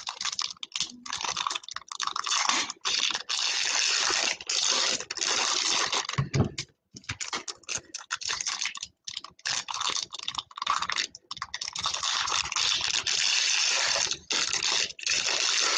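Shiny trading-card pack wrappers crinkling and crackling as packs are torn open and pulled apart by hand, in irregular spurts with short pauses.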